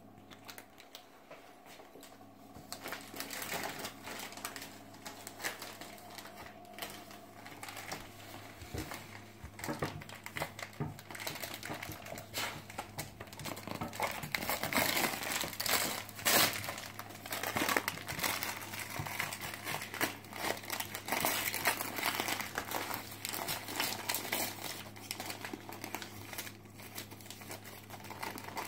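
Christmas wrapping paper crinkling and tearing as a dog bites and rips at a wrapped gift held in someone's hands. Faint at first, it grows louder and busier about halfway through.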